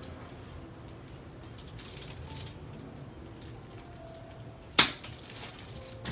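A single sharp, loud click from a spring-loaded Activator adjusting instrument delivering its low-force thrust about five seconds in, with a few fainter clicks before it and a smaller one near the end.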